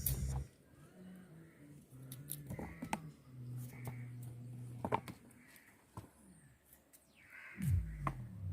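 Knife cutting pineapple into small slices: sparse, sharp taps of the blade on the cutting board, a second or more apart.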